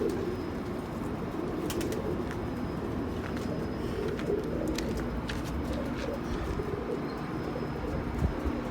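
Several domestic pigeons cooing steadily together in a loft, their low calls overlapping, with a few faint taps.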